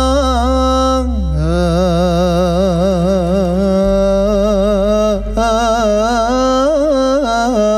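Male singer holding one long melismatic phrase of a Moroccan devotional song, with wavering, ornamented pitch that drops about a second in, over instrumental accompaniment; a low sustained drone underneath stops about four seconds in.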